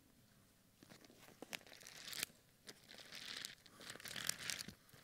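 Faint rustling and crinkling of thin Bible pages being turned by many people at once, the congregation looking up the passage. The rustle comes in scattered flurries and is fullest from the first second or two until near the end.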